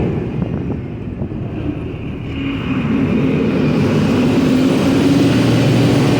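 Duck boat's engine running, its steady drone climbing slowly in pitch and getting louder from about two seconds in as the vehicle picks up speed.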